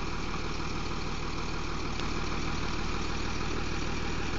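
Jitney's engine running steadily.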